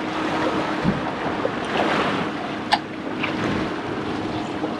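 Twin Honda outboard motors running under way with a faint steady hum, beneath the wash of churned water and wind on the microphone. A single sharp click sounds a little past halfway.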